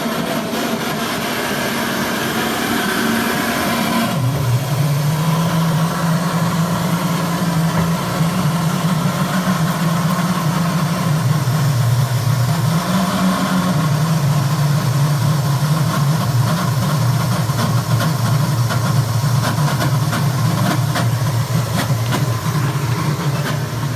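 Car engine idling steadily, heard close to an exhaust that is suspected of leaking. About four seconds in, the sound turns to a deeper, steady drone.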